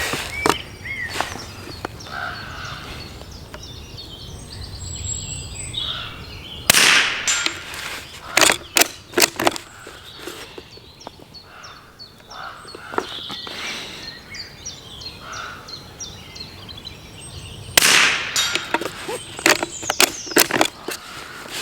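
Two shots from a Norinco JW25A .22LR bolt-action rifle, about eleven seconds apart. Each is followed by a series of metallic clicks as the bolt is worked. Birds chirp faintly in the background.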